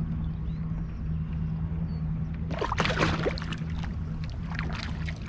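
Water splashing beside a kayak as a released pike kicks away from the angler's hand, loudest about halfway through, with a smaller splash near the end. A steady low hum runs underneath.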